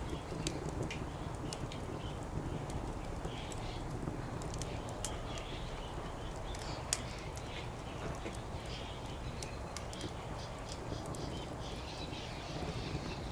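Wood fire burning, crackling with irregular sharp pops, one louder pop about seven seconds in.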